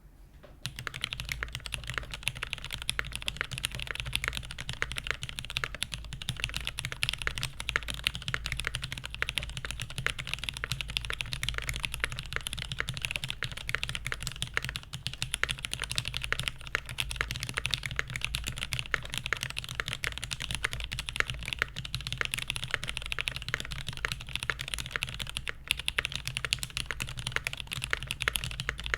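Continuous fast typing on an SG81M mechanical keyboard: lubed vintage Cherry MX Black linear switches on a top-mounted brass plate with GMK doubleshot ABS keycaps. Dense overlapping keystroke clacks start about half a second in.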